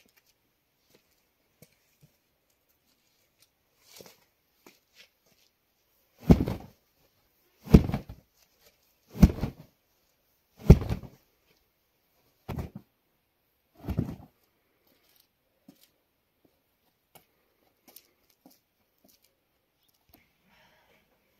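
A rug being shaken out hard in the air, six loud flaps about a second and a half apart.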